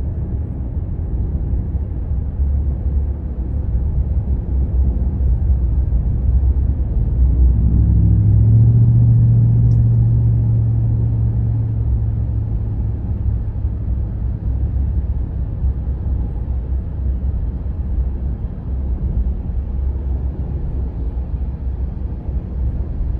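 Steady low vehicle rumble of a ride in traffic. A deeper engine drone swells about eight seconds in and fades away over the next several seconds.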